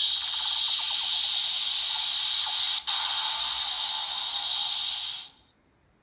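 Electronic sound effect from the speaker of a DX Rabbit Tank Sparkling transformation toy: a steady hiss lasting about five seconds, broken once for an instant near the middle, then cutting off.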